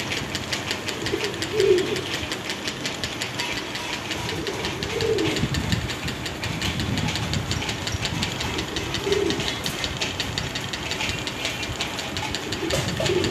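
Caged pigeons cooing: a few low coos several seconds apart, over a steady, fast mechanical ticking.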